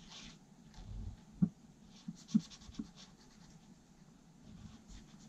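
Black felt-tip permanent marker scratching on origami paper as the nose is coloured in, with a few light taps in the middle.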